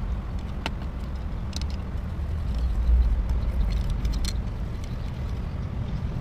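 A steady low rumble that swells about three seconds in, with a few light metallic clicks of a hand tool against the bare aluminium crankcase of a motorcycle engine under overhaul.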